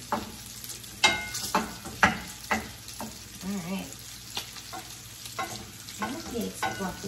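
Wooden spoon stirring and scraping scrambled eggs in a stainless steel frying pan, with sharp scrapes and taps against the pan every half second or so, over a low frying sizzle.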